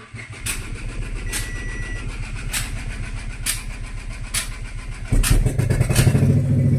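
Renault Kwid three-cylinder petrol engine cranking for about five seconds with sharp ticks roughly once a second, then catching about five seconds in and running louder through an open silencer. The long crank is the delayed-start fault being diagnosed, alongside misfire codes.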